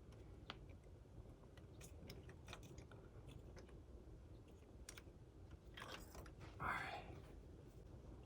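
Faint scattered metallic clicks and a short scrape of hand tools as a new spark plug is threaded in by hand, the louder scrape coming about six to seven seconds in.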